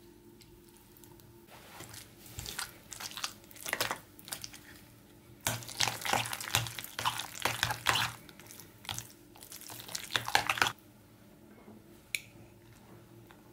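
Metal fork stirring cottage cheese with raisins in a ceramic bowl, with wet squishing and repeated scraping and clinking against the bowl. The stirring stops suddenly about three-quarters of the way through, and a single click follows.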